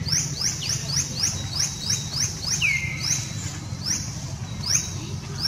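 Birds chirping: a quick run of short high chirps, about five a second at first and then sparser, with one falling whistle about two and a half seconds in, over a steady low hum.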